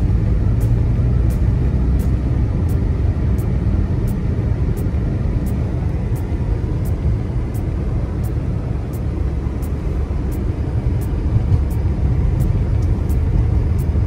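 Steady low rumble of a car driving on a snow-covered freeway, heard from inside the cabin: engine and tyre noise on the snowy road. A faint tick recurs about every two-thirds of a second.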